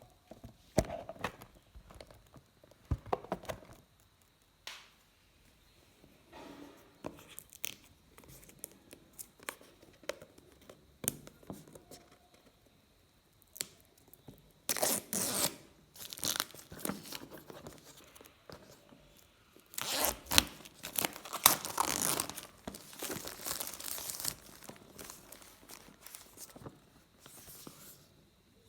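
A phone's retail packaging being opened by hand: plastic wrap tearing and crinkling, with scattered clicks and taps of the box being handled. The longest stretches of tearing come about halfway through and again a few seconds later.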